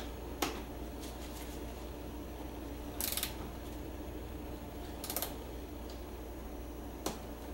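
Metal hand tools tightening the banjo bolts on a motorcycle's rear brake line: a few sharp metal clicks, with short rattles of clicks about three and five seconds in. A steady low hum runs underneath.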